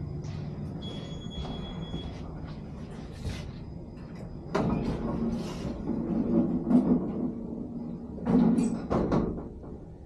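Passenger elevator: a beep lasting about a second, then the sliding doors closing and the car running with a low hum. The loudest clunks come about four and a half and eight and a half seconds in.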